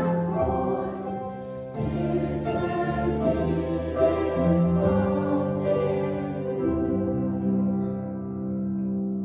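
Children's choir singing a slow hymn together, settling onto a long held note near the end.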